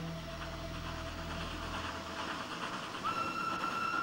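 Nilgiri mountain railway steam locomotive working, with a steady rush of steam and running noise; about three seconds in its steam whistle blows one steady, held note.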